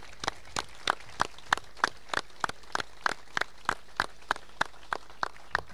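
An audience clapping in unison, a steady beat of about three claps a second.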